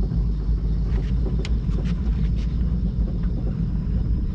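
Boat motor running at idle: a steady low rumble, with a few faint clicks between about one and two and a half seconds in.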